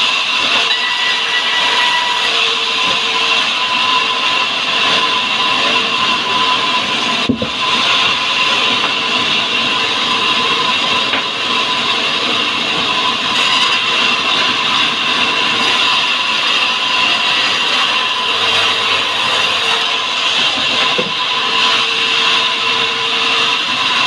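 Sawmill log band saw running and cutting through a salam hardwood log: a steady, loud hiss with a high whine. It breaks off briefly about seven seconds in.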